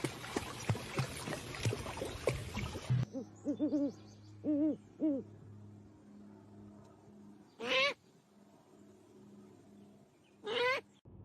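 About three seconds of clattering noise full of clicks, which stops suddenly. Then an animal gives a few short calls, followed by two louder calls that each sweep sharply upward in pitch.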